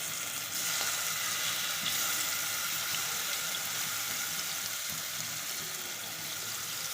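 Masala-coated prawns frying in hot oil in a pan: a steady sizzling hiss.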